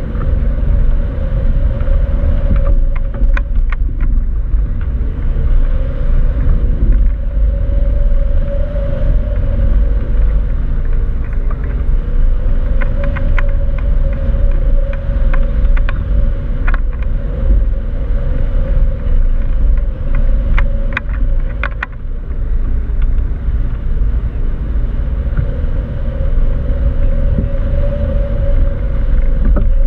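Airflow buffeting the wing-mounted camera's microphone as a tandem hang glider flies under boat tow: a loud, steady rumble of wind, with a wavering drone-like tone running through it and a few faint ticks.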